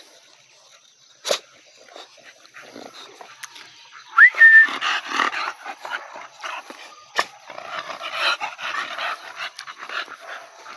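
American Bully dogs close by: a brief high whine about four seconds in, then a busy stretch of snuffling and rustling with the nose down in dry grass. A sharp knock comes about seven seconds in.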